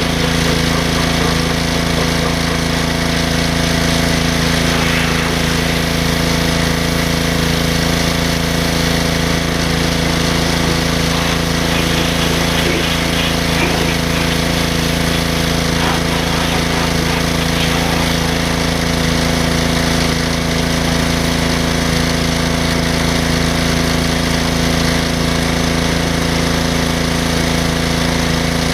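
Pressure washer running steadily, a constant motor hum under the hiss of its water jet blasting a cast-iron engine block.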